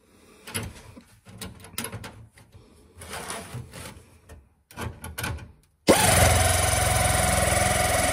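A few brief handling rustles, then about six seconds in a handheld power sheet-metal shear starts up and runs with a loud, steady, fast-pulsing buzz, its blade set at the edge of a steel sheet.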